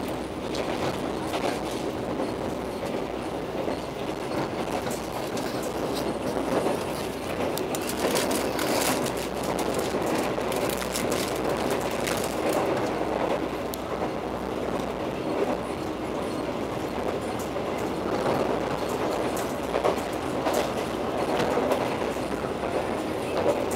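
Argo Parahyangan passenger train running at speed, heard from inside the carriage: a steady rumble of wheels on rail with a sharper click now and then.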